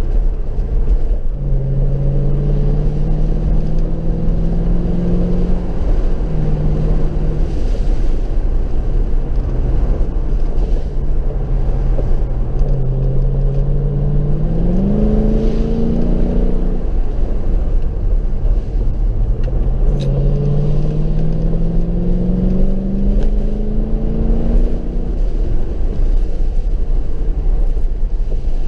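Mercedes SLK 55 AMG's V8 engine pulling the car along: its note rises in pitch three times as the car accelerates and falls back between, over a steady deep road rumble.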